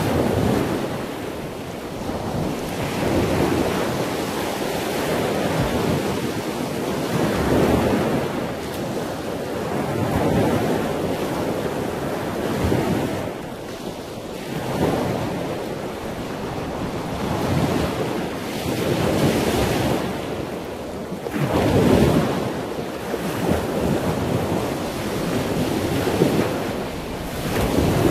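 Wind buffeting the microphone in uneven gusts that swell and fade every couple of seconds, over a steady rushing noise.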